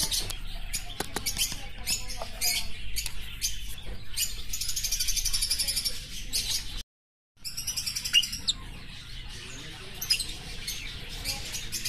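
Small cage birds chirping and trilling together in a dense, busy chorus of quick high-pitched calls, broken by a brief cut to silence about seven seconds in.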